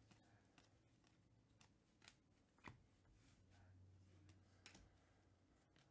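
Near silence, with a few faint clicks and slides of Panini Prizm trading cards being handled and flipped through.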